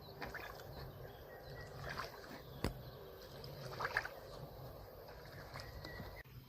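Faint water sloshing and splashing as someone moves in the water, with a few light knocks and a sharper one a little before the middle.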